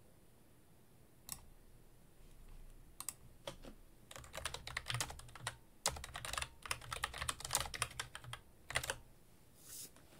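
Typing on a computer keyboard. There is a single key click about a second in, then a fast run of keystrokes from about three seconds in until shortly before the end.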